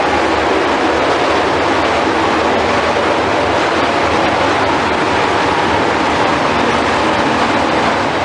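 Loud, steady rumbling and rushing noise of running machinery, unchanged throughout.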